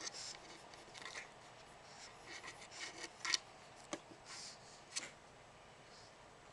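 Pug puppies scrabbling and sniffing at the edge of a wooden tabletop: scattered short scrapes and rustles, with a few sharp clicks about halfway through.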